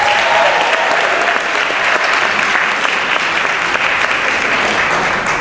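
Audience applauding, a dense, steady clapping that drops away near the end.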